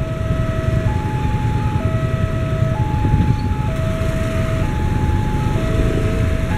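Railway level-crossing warning siren sounding an electronic two-tone alarm: a lower and a higher tone alternate, each held just under a second, over a steady low rumble.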